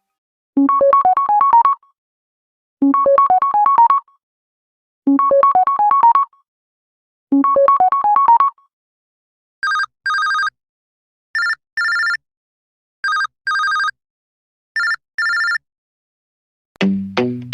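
LG G8/V50 phone ringtones. First a short rising run of electronic notes plays four times, then a different tone of short high double beeps sounds four times, and another tone starts near the end.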